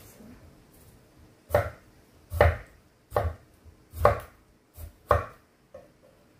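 Kitchen knife slicing through a tomato and striking a wooden cutting board: five firm cuts under a second apart, starting about a second and a half in, with a couple of lighter taps near the end.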